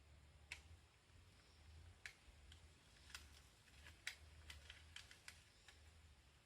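Near silence with a low steady hum and about a dozen faint, irregular clicks and ticks.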